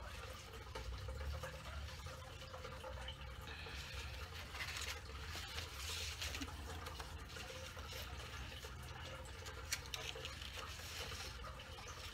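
Paper plate and cut paper pieces rustling and scraping on a tabletop as they are handled and turned over, in a few short spells, over a low steady hum.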